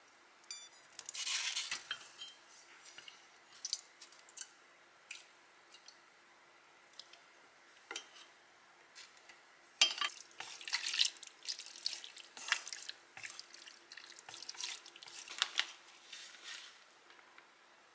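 Cooked udon noodles dropped into a creamy mushroom sauce in a frying pan and stirred in. Scattered wet splats and pops come with it, with occasional clicks of utensils on the pan, busiest after about ten seconds.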